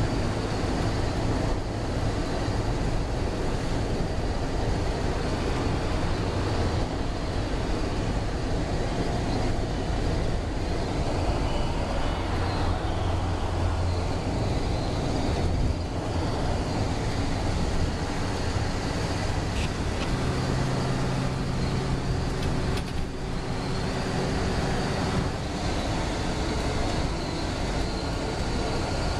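Steady running noise of a moving vehicle heard from inside it: a continuous rumble with a low hum that swells about halfway through and again about two-thirds of the way in.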